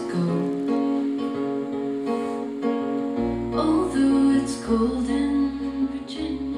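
Live folk-pop band music: a woman singing over strummed acoustic guitar, with low bass notes coming in about three seconds in.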